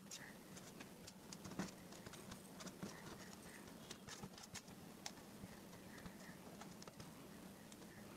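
Faint, irregular small clicks and taps of wire ends and a small circuit board being handled on a wooden tabletop, the sharpest tap about one and a half seconds in, over a low steady hum.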